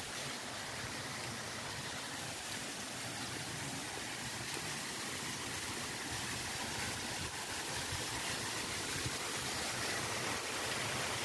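Water of a forest waterfall rushing steadily, growing slightly louder toward the end.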